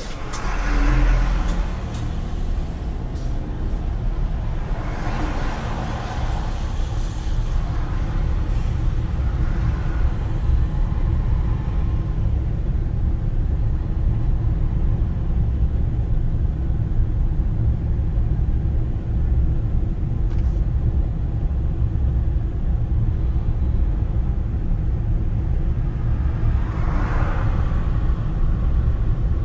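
Daihatsu Tanto Exe kei car driving on a wet road, heard from inside the cabin as a steady low engine and road rumble. A hiss swells briefly about a second in, again around five to seven seconds, and near the end, the first as a box truck passes alongside.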